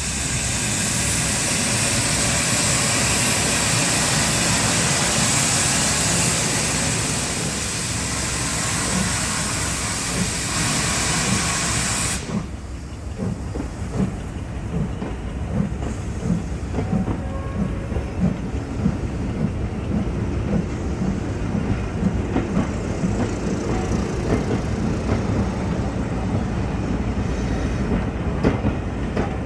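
Steam locomotive letting off a loud, steady hiss of steam that cuts off suddenly about twelve seconds in; after it the train runs on with a low, regular knocking beat.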